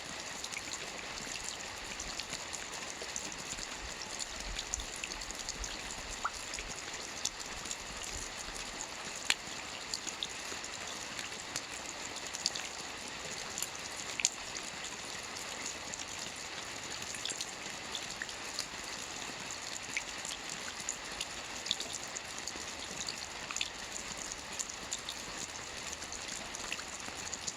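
Steady rain: an even, high hiss of falling rain with scattered individual drops ticking through it.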